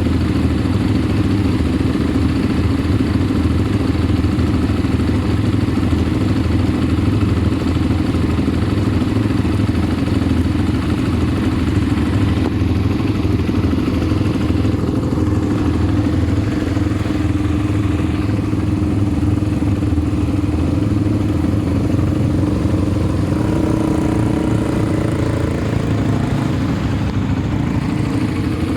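ATV engine running steadily as the machine rides along, with its pitch shifting a little near the end.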